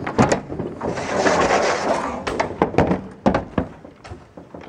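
Hard-shell Odyssey road cases being handled and restacked: a knock, a scraping slide of about a second, then a quick run of sharp knocks from the cases and their metal hardware.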